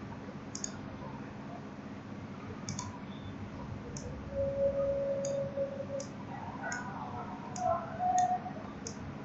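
Computer mouse button clicks, about ten single clicks spaced irregularly, over a steady low hum. A held tone lasting over a second comes about halfway, and wavering higher tones near the end are the loudest sounds.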